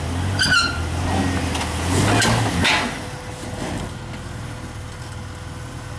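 Off-road vehicle engine running at low revs while crawling, with a louder rush of noise about two to three seconds in.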